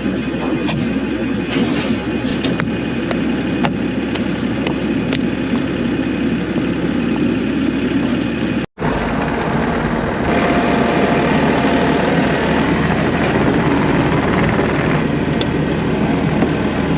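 A vehicle's engine running steadily with road or track noise as it moves, a few sharp knocks in the first half. The sound drops out for an instant about nine seconds in, then carries on slightly louder.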